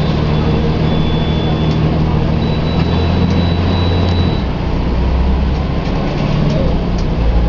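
Volvo B10M bus's electronically controlled diesel engine (9.6-litre straight-six) running steadily, with its low note changing about four seconds in.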